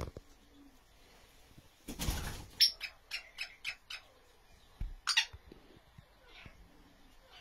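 Francolins (teetar) in a scuffle: a burst of wing flapping about two seconds in, followed by a quick run of about six short, sharp high-pitched sounds and another sharp burst near five seconds.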